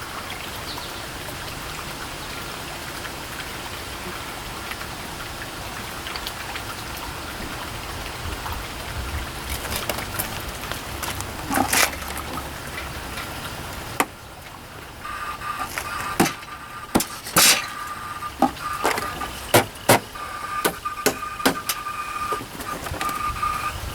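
Hard drive for a Macintosh Plus running with worn-out spindle bearings: a steady whirring noise, then, after a sudden drop about 14 seconds in, a steady high whine with a string of irregular clicks and knocks.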